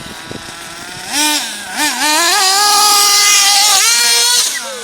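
Small nitro engine of a 1/8-scale GS Storm buggy revving: short throttle blips in the first two seconds, then held at high revs for about two seconds before backing off near the end.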